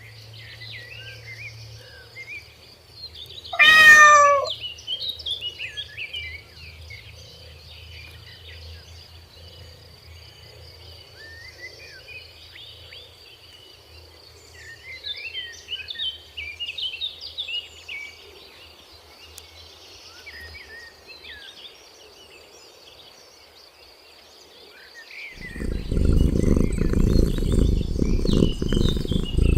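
A cat meows once, loudly, about four seconds in, over scattered birdsong and a steady high insect drone. A loud low rumble sets in about four seconds before the end.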